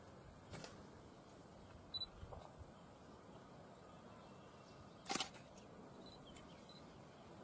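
Near silence with a faint steady hiss, broken by a few short faint clicks, the clearest about five seconds in.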